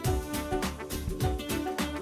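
Upbeat background music with a steady beat, about two beats a second.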